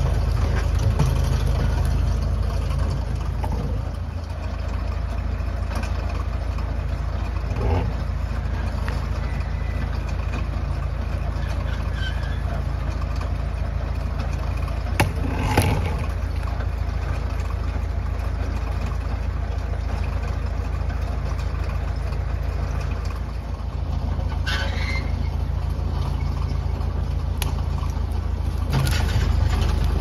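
Massey Ferguson MF 30 industrial tractor engine running steadily while its Farmi 501 winch drags a heavy log uphill. Three short, louder snaps come from the log dragging through brush and branches.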